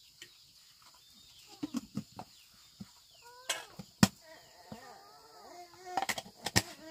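Chopsticks and a plastic jar with its lid clicking and knocking as the jar is handled and the lid put back on. The sharpest click comes about four seconds in and a quick run of clicks near the end. Chickens cluck in the background.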